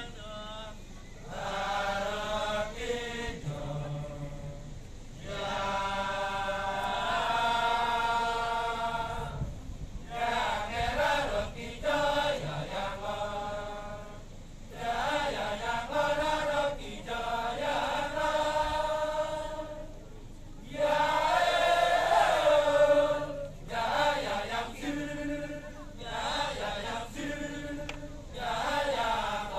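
A Balinese Kecak chorus of many men chanting together in drawn-out phrases that waver in pitch, each lasting a few seconds, with short breaks between them.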